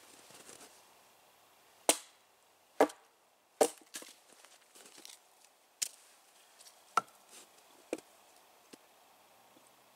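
Hatchet striking a stick of firewood stood upright on a log, splitting it: sharp wooden knocks, three loud ones about a second apart, then lighter blows roughly once a second.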